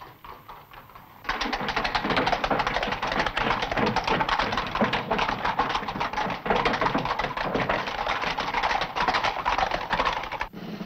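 Hoofbeats of several horses walking over stone paving, a dense, irregular clatter. It starts suddenly about a second in and cuts off just before the end.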